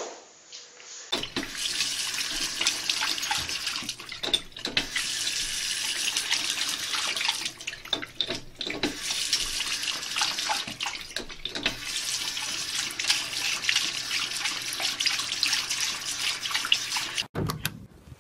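Bathroom sink faucet running, water splashing into the basin. It starts about a second in, has a few brief dips, and cuts off near the end.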